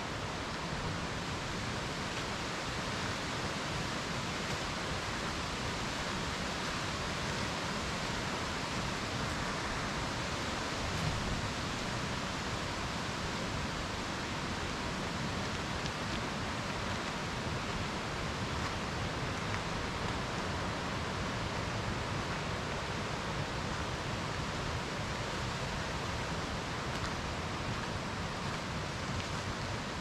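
Mountain stream rushing steadily: an even, unbroken hiss of flowing water.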